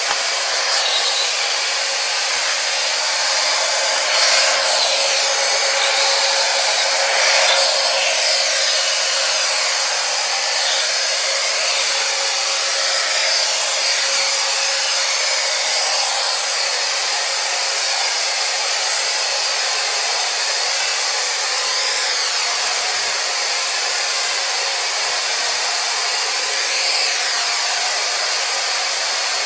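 Xiaomi robot vacuum cleaner running, its suction fan and brushes making a steady whir with a constant hum tone and slight swells as it moves.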